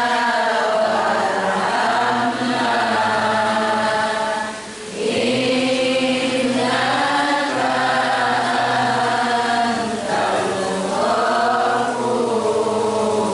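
Voices chanting a devotional song in unison, in long melodic held notes, with a brief break about five seconds in.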